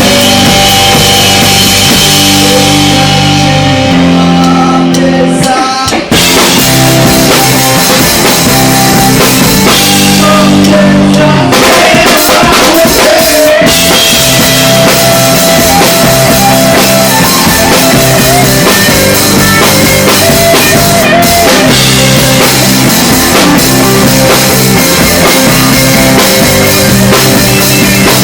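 Rock band playing live, with drum kit and guitar, and a brief break in the playing about six seconds in.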